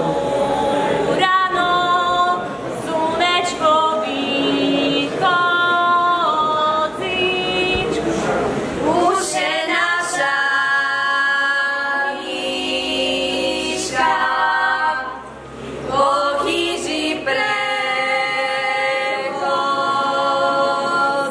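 A group of young women singing a traditional Slovak čepčenie (bride's capping) song a cappella, in long held phrases, with a short break about fifteen seconds in.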